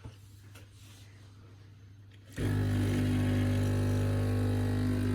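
Sage Barista Touch (Breville Barista Touch) espresso machine's pump switching on about two seconds in and running with a steady, loud buzzing hum as it pulls a single espresso shot.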